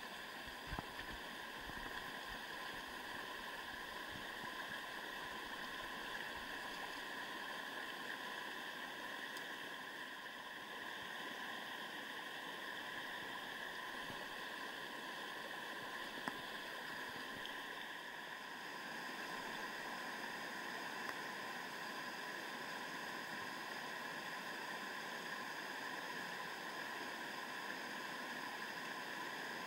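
Rushing water of a mountain stream's rapids, a steady, even noise, with a couple of brief clicks near the start and about sixteen seconds in.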